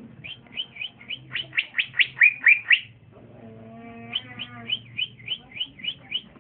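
A young male green leafbird (cucak ijo) singing: two fast runs of loud, sharp down-slurred whistles, about four or five notes a second. The first run swells to its loudest near the end. The second starts about four seconds in. Between the runs there is a brief, lower, steady tonal sound.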